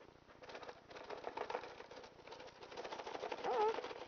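Cardboard doll-accessory box being handled and pried at by hand: quick scratchy rustling and scraping of the cardboard, with a short wavering vocal sound near the end.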